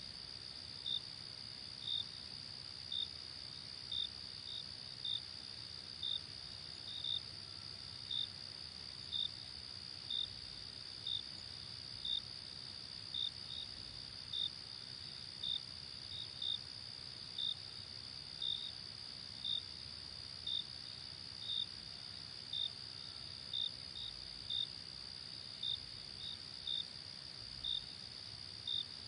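Night insect chorus: a steady high trill, with a cricket's short chirps standing out above it about once a second, now and then in quick pairs.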